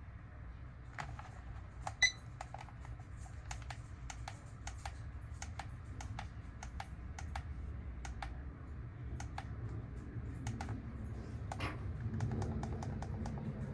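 Buttons on a weather alert radio clicked over and over at an irregular pace while its date is set by hand, with one short high beep about two seconds in, over a low steady hum.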